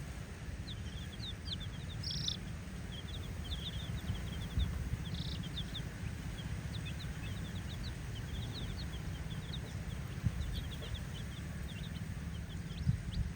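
A group of baby chickens peeping busily, many short high falling chirps overlapping, over a steady low rumble.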